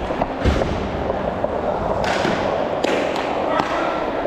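Rink noise on an indoor plastic-tile hockey floor: a steady rolling clatter of skates over the tiles, broken by several sharp knocks of hockey sticks and puck on the floor and boards, about half a second in, around two seconds, and near three and three and a half seconds.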